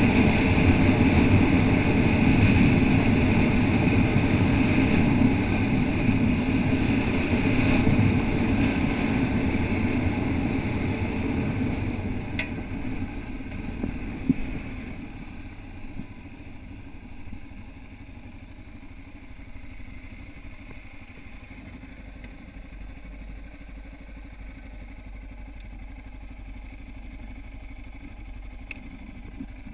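Yamaha XT660R single-cylinder engine pulling the bike along at speed on a gravel road, with dense road and wind noise. About twelve seconds in it eases off and then runs much more quietly at low speed, with a couple of sharp ticks as it slows.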